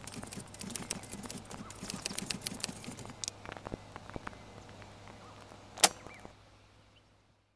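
A rapid, irregular patter of small clicks and crackles that thins out after about three seconds, with one sharper click a couple of seconds later, then fades away to silence.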